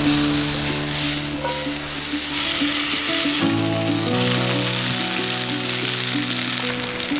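Hot oil sizzling in a cast-iron pan over a campfire as bell pepper rings and a fish fillet fry, with background music underneath.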